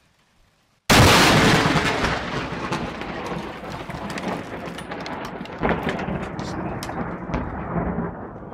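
Lightning striking very close: a sudden loud thunderclap about a second in, decaying into rumbling, crackling thunder with scattered sharp cracks, fading over several seconds.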